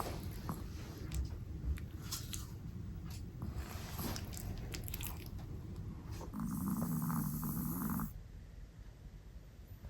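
Chihuahua snoring in its sleep: soft snuffling with small clicks, then one louder, long snore about six seconds in that lasts almost two seconds and stops abruptly.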